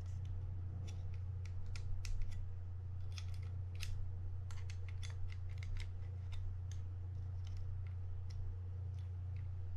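Small metal pick clicking and scraping against the metal plate in a Mitchell 300 spinning reel's rotor, many light irregular clicks as the plate, its prong stuck in a slot, is jiggled loose. A steady low hum runs underneath.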